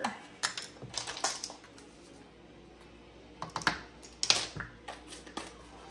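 Light clicks and taps of plastic measuring spoons against a spice jar and bowl as onion powder is spooned into a bowl of mixed spices: a cluster of clicks near the start and another in the second half.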